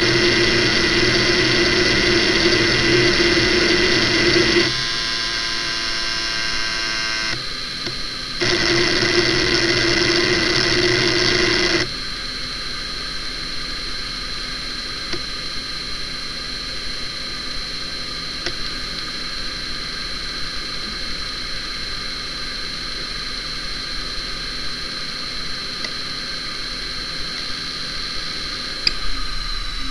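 Hitachi Ultrastar DK32EJ-36NC 10,000 rpm SCSI hard drive's heads seeking rapidly through a benchmark's seek tests, a loud buzzing chatter that changes pattern a few times and stops about 12 seconds in. The drive then idles with a steady high spindle whine, and near the end a click as it starts to spin down, the whine beginning to fall.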